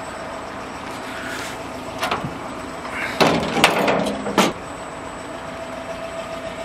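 Steel latch lever on the drop side of a GAZ Gazelle's cargo bed being worked by hand. A couple of light clicks come about two seconds in, then a burst of loud metallic clanks and rattling over the next second or so as the lever and lock are swung.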